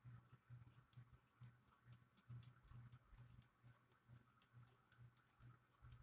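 Faint, even ticking of a wind-up mechanical alarm clock movement, about five ticks a second.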